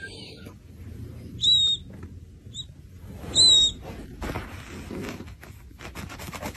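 Chick peeping: two loud, high cheeps about two seconds apart with a short peep between them, over faint rustling and small taps on the bedding.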